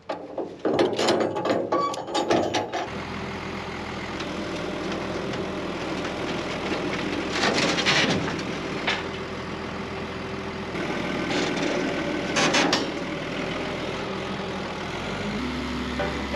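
A few knocks and clunks, then a vehicle engine running steadily, with two short louder rushes along the way.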